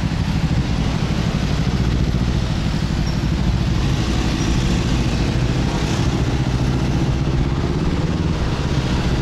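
Motorbike taxi engine running steadily on the move, with a constant rush of road and wind noise.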